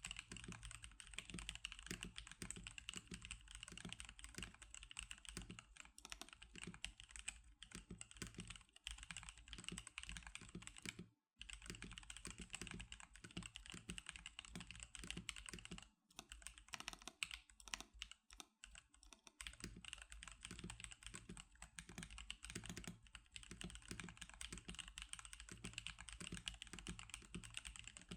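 Continuous typing on an NK87 custom mechanical keyboard fitted with Magic Girl DSA keycaps: a steady stream of keystrokes, with one brief pause near the middle and a few short breaks after it.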